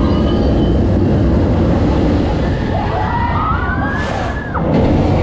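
Loud flight-simulator ride soundtrack: a deep, steady rumble, with a gliding, siren-like call that rises and falls about three seconds in.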